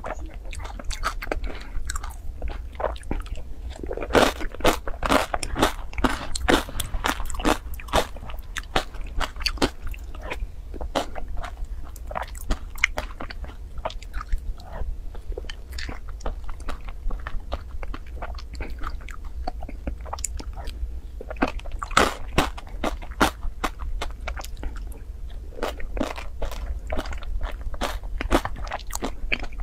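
Close-miked eating of a soft, creamy food with corn kernels: wet chewing, lip-smacking and a rapid, irregular stream of mouth clicks.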